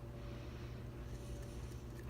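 Steady low background hum, with no distinct pick clicks.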